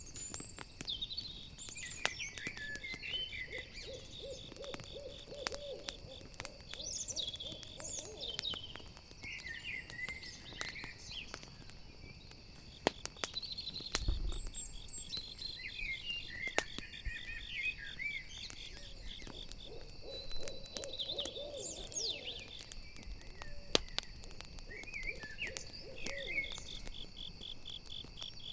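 Crackling campfire over a steady chorus of crickets, while an owl gives three runs of quick low hoots. High chirps come and go throughout.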